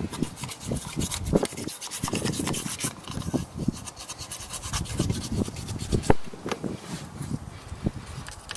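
A toothbrush scrubbing carbon build-up out of the intake ports of a direct-injection TFSI cylinder head, wet with carbon cleaner, in quick, irregular rasping strokes.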